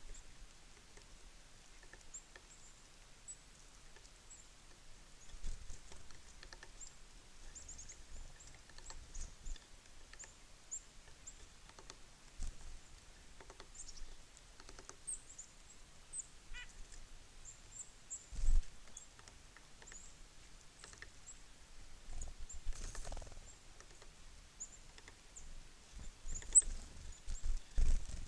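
Small songbirds at a winter feeder calling with many short, high, thin chips and twitters, scattered and overlapping. A few low thumps are mixed in, the loudest about two-thirds of the way through.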